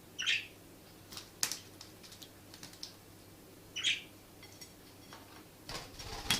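Budgerigar chirping twice, short high calls about three and a half seconds apart, with scattered light clicks and taps in between. A burst of rustling starts near the end.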